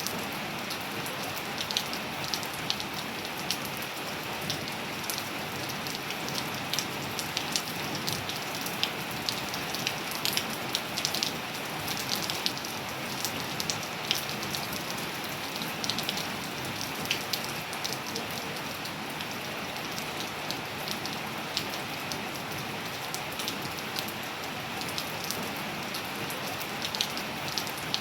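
Steady rain falling on a surface, a continuous hiss with many distinct drops pattering and ticking through it.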